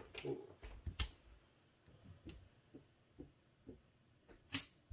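Casino chips clicking as they are picked up and set down on a felt craps layout: a string of light clicks, the loudest about a second in and again near the end.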